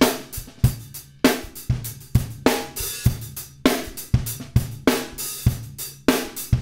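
Multitrack recording of an acoustic drum kit (kick, snare, hi-hat and cymbals) playing a steady beat of about two hits a second, processed by the Digirack Compressor II plug-in, which gives the hits a clearly audible grab.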